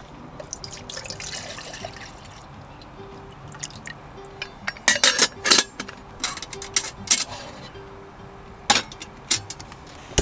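Water poured from a plastic bottle into a stainless steel pot. Then come a series of sharp metal clinks and clanks as the pot's lid is fitted and the pot is set on a small gas camp stove.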